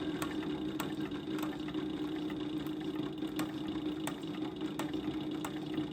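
SEWPRO 8360B industrial post-bed sewing machine, a needle-feed walking-foot type, running steadily while stitching, with a continuous hum and occasional sharp clicks.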